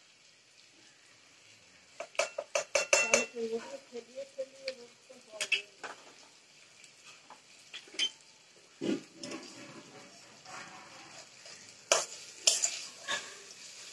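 Metal spatula clinking and scraping against a metal pot as potatoes and spices are stirred, over a faint sizzle. The clinks come in bursts: a quick run of them about two seconds in, a few single knocks after, and another cluster near the end.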